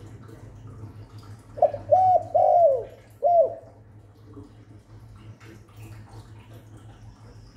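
Spotted dove cooing: one phrase of four low coo notes starting about a second and a half in and lasting about two seconds, over a low steady hum.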